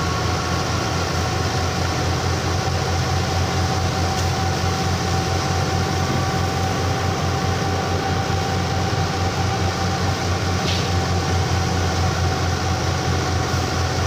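Fiat 640 diesel tractor running under load as it drives a wheat thresher, with the thresher's drum and cutters running. A steady heavy drone with fast low pulsing and a constant whine over it.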